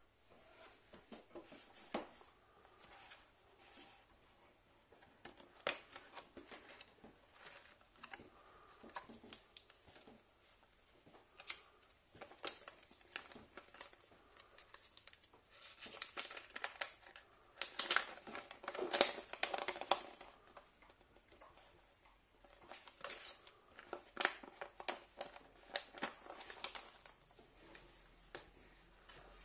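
Small cardboard box and folded paper leaflet being handled: faint scattered taps and scrapes of the box flaps, with louder bursts of paper crinkling and rustling about halfway through and again later as the leaflet is unfolded.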